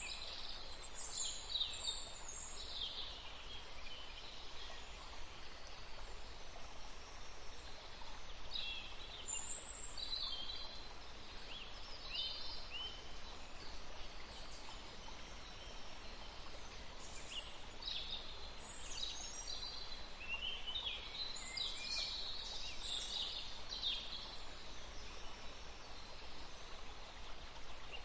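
Forest ambience: small birds chirping and twittering in scattered bursts of short, high calls over a steady hiss of running water.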